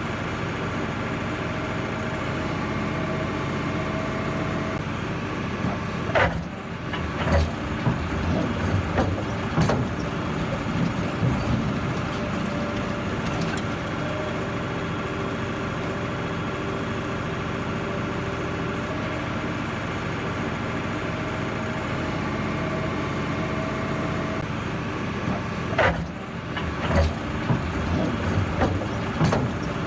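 Heavy diesel excavator engine running steadily, with two clusters of sharp knocks and cracks, about six seconds in and again near the end.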